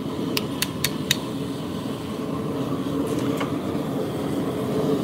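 Cooked mud crab shell being cracked apart by hand, a few short sharp snaps in the first second, over a steady low mechanical drone.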